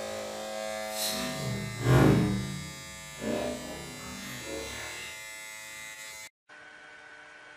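A steady electric buzz, like a small motor or electric shaver, with louder swells about one, two and three seconds in. It cuts off sharply about six seconds in, leaving a faint hiss and hum.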